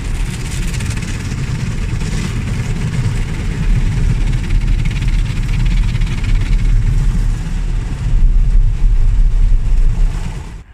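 Automatic car wash heard from inside the car: water jets spraying and rotating brushes sweeping over the windshield, over a loud steady rumble of the wash machinery. It gets louder about eight seconds in.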